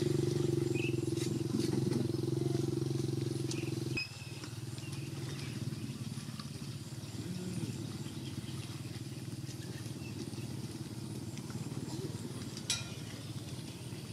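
A steady low mechanical hum, like a distant motor, that cuts off abruptly about four seconds in. A fainter low rumble of outdoor background follows, with one sharp click near the end.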